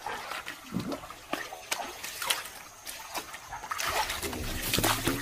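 Water splashing and sloshing as a person wades and works with her hands in shallow river water, in short irregular splashes that grow louder and more continuous near the end.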